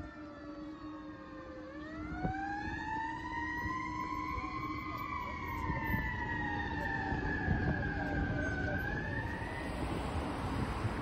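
Fire engine siren wailing, its pitch falling, winding slowly up, sliding back down and rising once more before it fades away near the end as the engine drives off, with a steady low hum under it.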